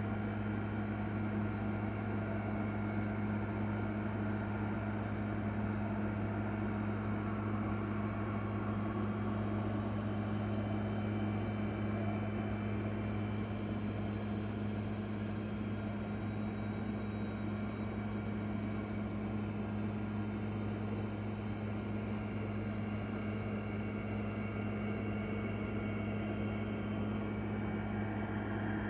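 A steady low machine hum that holds the same pitch and level throughout, with a faint hiss above it.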